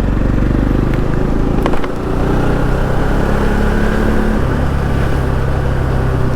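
Motorcycle engine running as the bike is ridden slowly, its note stepping down to a lower pitch a little past the middle.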